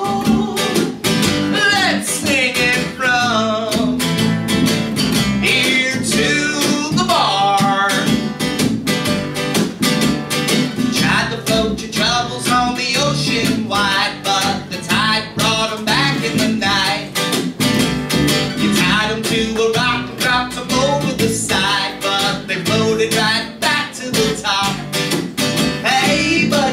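Acoustic guitar strumming a country song with an upright double bass, played live.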